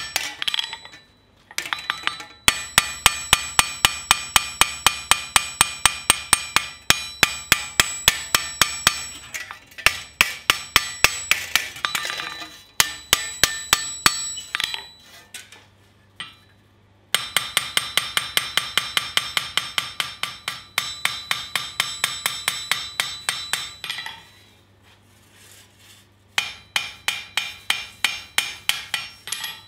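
Hand hammer striking a steel scythe blade on an anvil in quick runs of blows, about two to three a second, each blow ringing out. There are a few short pauses between runs.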